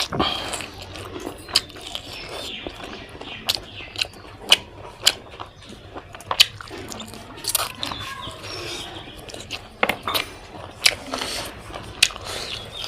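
A person chewing and biting pork close to the microphone, with irregular sharp wet clicks and smacks from the mouth.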